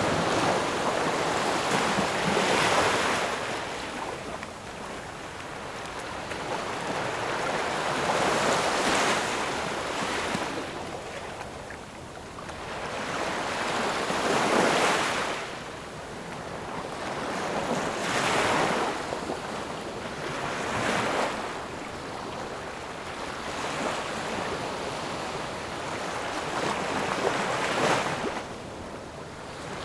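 Ocean surf: waves surging in and washing back in a continuous hiss, with about six louder swells a few seconds apart.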